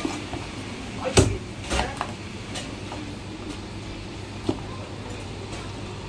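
Cleaver chopping marinated goose feet on a white plastic chopping board: a sharp knock about a second in, two more close together soon after, and one lighter knock a few seconds later, over a steady low hum.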